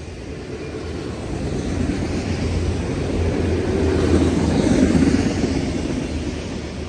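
Autorack freight cars rolling past close by: a steady rumble of steel wheels on the rails. It grows to its loudest about four to five seconds in, then eases off.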